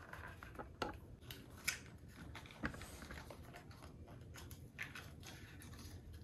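Faint handling sounds of small packaging being unwrapped by hand: a scattering of soft clicks and short rustles of plastic and paper.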